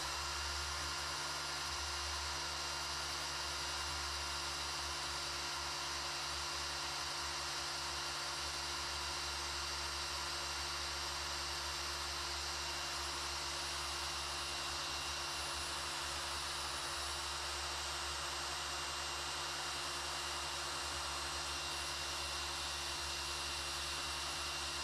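Corded electric drill running at a steady speed, turning an oil pump priming tool to drive the oil pump of a 383 stroker engine. This is the oiling system being primed, with oil pushed through the engine before its first start.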